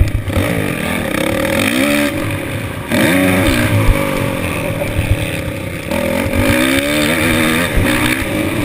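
Motocross dirt bike engine heard up close from a helmet-mounted camera, its revs climbing and dropping several times as the rider opens the throttle and rolls off through the corners. Low wind buffeting runs underneath.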